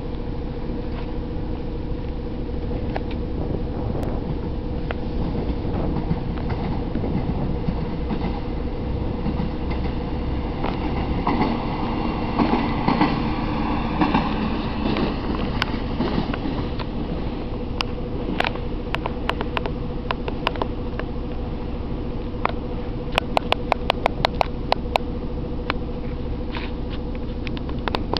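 SA135 diesel railbus passing: its engine runs with a steady drone that swells about halfway through as it goes by. In the second half come runs of quick, sharp clicks from the wheels over the rail joints, several a second, densest near the end.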